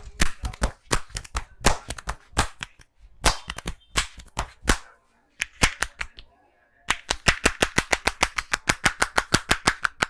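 Hand slaps and claps of an Indian head massage: sharp irregular smacks, then after a short pause a fast even run of about eight claps a second.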